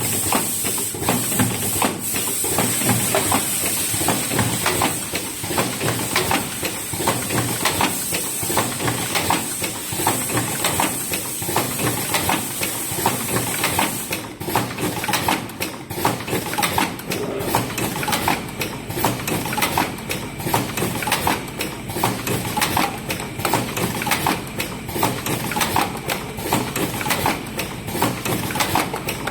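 Automatic cartoning machine running, with a steady fast clatter of small knocks and clicks. A high hiss runs over it and stops about halfway through.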